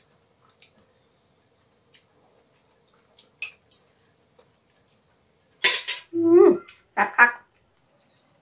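Light clinks of cutlery against a large stainless-steel serving tray. About five and a half seconds in there is a louder cluster of sounds: a sudden burst, a short sound that falls in pitch, then two quick bursts.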